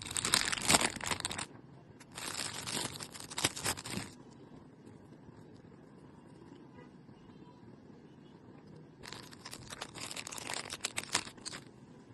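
Packaging of new stationery being handled and opened: crinkling, rustling and tearing in three bursts, the first two back to back near the start and the third a few seconds later.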